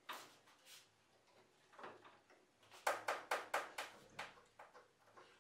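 Steel bar clamps being set and tightened along a wooden strip. A few scattered clicks come first, then about three seconds in there is a quick run of about six sharp metal clacks.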